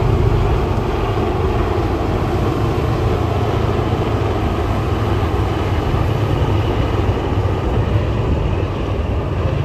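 A formation of helicopters flying past, heard as a steady low rumble.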